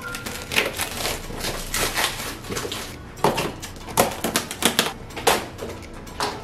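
A large parcel being unpacked by hand: plastic wrapping rustling and tearing, packing tape being slit on a cardboard box, and the box being handled, in a run of irregular sharp clicks and crinkles.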